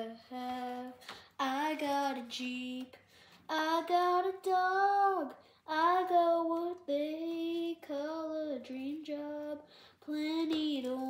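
A boy singing unaccompanied, a single voice holding and sliding between notes in sung phrases separated by short breaths.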